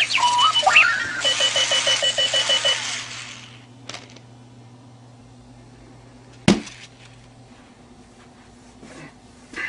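Runaway wheeled alarm clock sounding its electronic alarm: warbling beeps that glide and step in pitch, then a rapid run of chirps. The alarm stops about three seconds in. A few sharp knocks follow, the loudest about six and a half seconds in.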